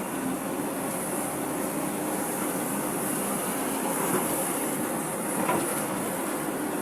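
Excavator engine and hydraulics running steadily while digging a trench, with a couple of faint knocks about four and five and a half seconds in.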